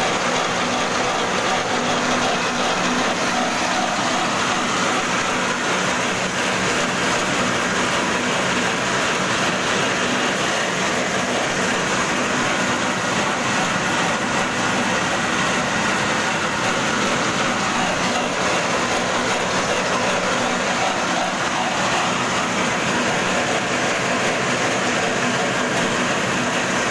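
Corn-cleaning machine running steadily: the drone of its small engine mixed with a continuous rattle from the shaking mesh sieve and the shelled corn kernels moving through it.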